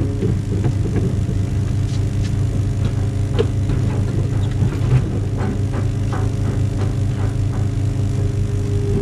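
Truck's diesel engine running steadily at a constant speed, powering the loading crane while a cable drum is lifted onto the trailer. A few light clinks about halfway through.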